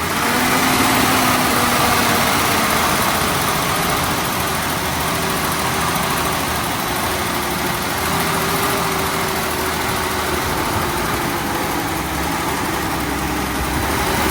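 1965 Ford Mustang engine running steadily at a fast idle, with no sharp changes. The car stalls when it is left to idle, which the owners put down to a flooding carburetor float.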